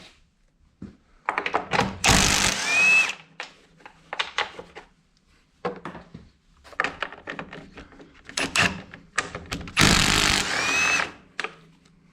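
Cordless impact driver backing out small 5/16 screws from a riding mower's engine cover with a socket on an extension. It makes two runs of about a second each, with a short whine near the end of each. Small clicks and rattles come between the runs.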